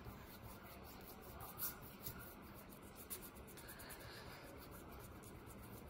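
Faint fingertip rubbing on paper, smudging oil pastel to blend the colours.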